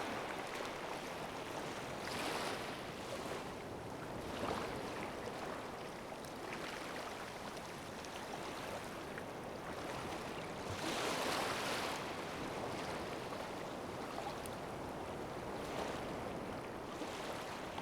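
Ocean waves washing against the shore, a steady rush that swells in surges every few seconds, the biggest about eleven seconds in.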